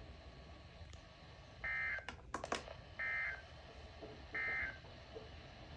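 Three short, buzzy electronic data bursts about 1.3 s apart, with a few clicks just after the first. This is the SAME digital header of an Emergency Alert System weather alert coming through a weather radio, marking the start of a new warning.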